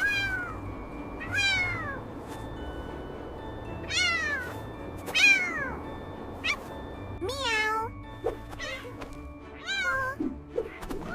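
A kitten meowing over and over, short high meows that mostly fall in pitch, with soft background music underneath.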